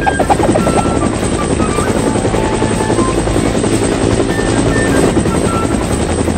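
Helicopter rotor sound effect, a fast steady chopping, laid over light background music.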